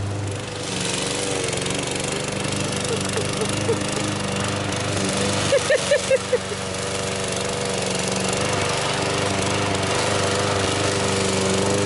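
Gas walk-behind lawn mower running steadily while it cuts long grass, with a few short louder bursts about six seconds in.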